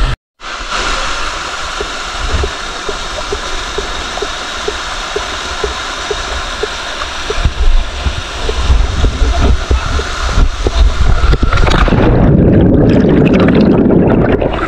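Steady rush of a small waterfall and water cascading over rock. About twelve seconds in the sound goes under the water: the high end drops away and it turns into a muffled, bubbling underwater rush.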